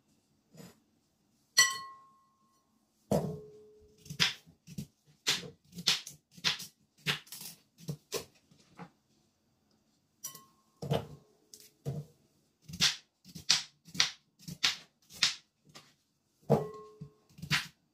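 Knife chopping raw sweet potato on a bamboo cutting board: sharp knocks, irregular at first, then about two a second, with a short pause about nine seconds in. A few of the strokes ring briefly with a clink.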